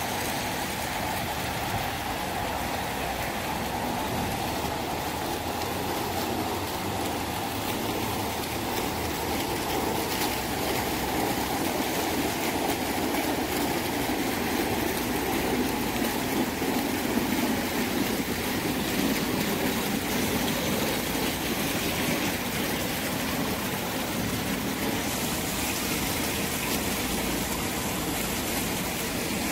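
Fountain jets splashing steadily into a shallow pool.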